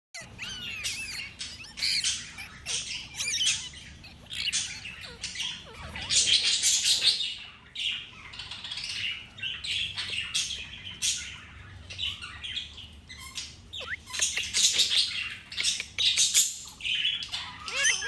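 Indian ringneck parakeet calling: repeated short squawks and chirps that come in bursts every second or two, with a few brief gliding whistles.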